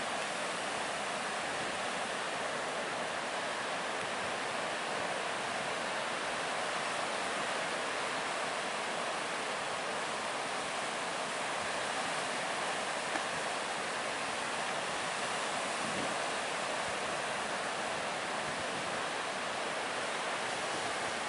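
Ocean surf breaking, heard as a steady, even rushing wash.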